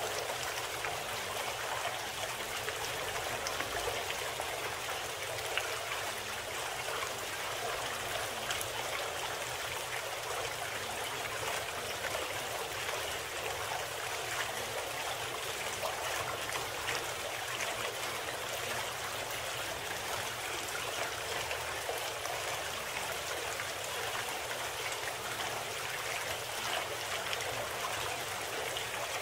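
Steady running-water sound, like a babbling stream, unchanging throughout: the masking background bed of a subliminal audio program.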